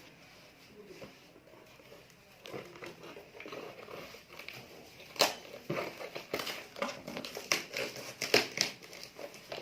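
Parcel wrapping being handled and torn open by hand, a faint rustle at first, then a run of sharp, irregular crinkles and crackles from about five seconds in.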